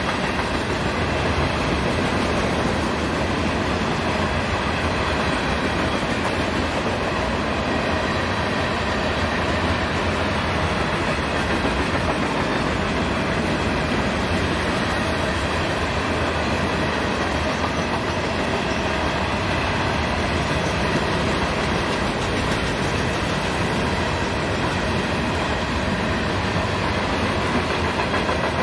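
Florida East Coast freight train's cars rolling past, a steady, unbroken noise of steel wheels on rails.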